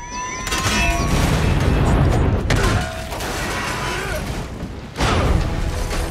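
Action-film soundtrack: dramatic score mixed with explosions and crashing wreckage. A heavy rumble builds over the first two seconds, a sharp crash comes about two and a half seconds in, and another loud hit comes about five seconds in.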